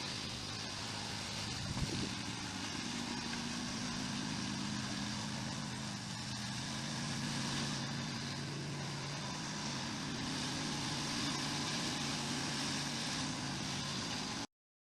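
Snowblower engine running steadily under load with a broad rushing noise, the engine's drone settling in about two seconds in. It cuts off suddenly near the end.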